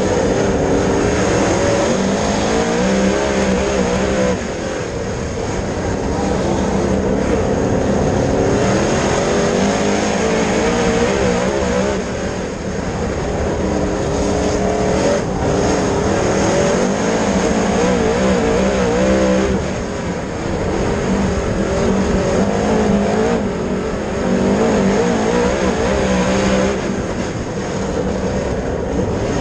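Dirt late model race car's V8 engine running hard on track. Its pitch rises and falls continuously, and the level dips briefly about every eight seconds.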